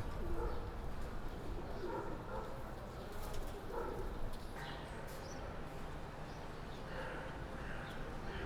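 Pigeons cooing, several soft low calls in the first few seconds, over a steady low background rumble.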